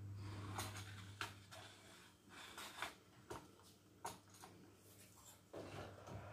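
Faint clicks and knocks from a metal roasting tray being handled and carried. Near the end the oven door is pulled open and a steady hiss begins.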